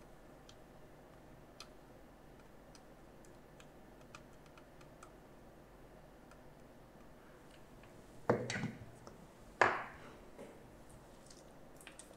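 Faint, scattered small ticks of a hand tool's tip touching components on a laptop motherboard under a microscope, then two louder short knocks about a second and a half apart near the end.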